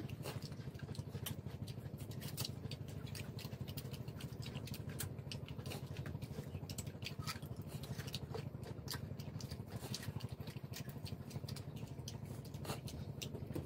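Boiled shrimp being peeled and eaten by hand: many quick, irregular small crackles and clicks of shells snapping and breaking, over a steady low background hum.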